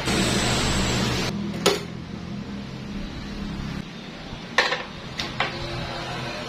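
A steady hiss that cuts off about a second in, followed by four sharp metallic clinks, the last three close together.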